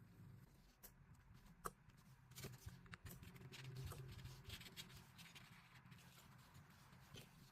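Faint handling sounds of a phone repair: light scraping and small clicks of tools and parts on a work surface, with one sharp click about a second and a half in and a busier stretch of scraping in the middle.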